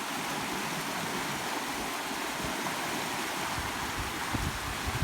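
Floodwater rushing steadily over a breached rice-field bank. Wind buffets the microphone a few times near the end.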